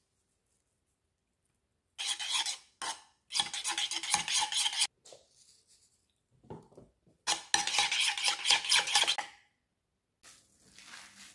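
Metal spoon stirring a thick yogurt sauce in a bowl, with rapid clinking and scraping against the bowl in two bouts, about two seconds in and again about seven seconds in.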